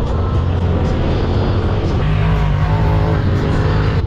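Engine of a Polaris RZR Pro XP 4 side-by-side running steadily as it drives across sand dunes, heard from on board, its note shifting about halfway through.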